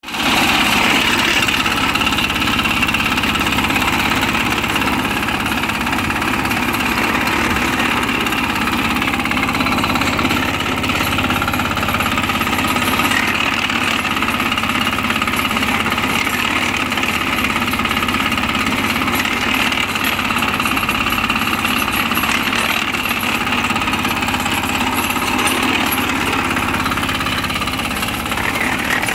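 Small 7 hp single-cylinder diesel engine running steadily at a constant speed.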